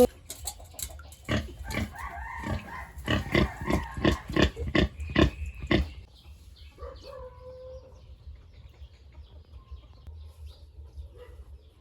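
Pigs grunting and squealing in a quick run of short calls for about five seconds, then going quieter.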